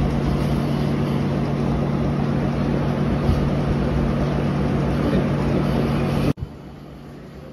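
Steady machine hum: a low drone with a rushing noise over it, cutting off suddenly about six seconds in to a much quieter hiss.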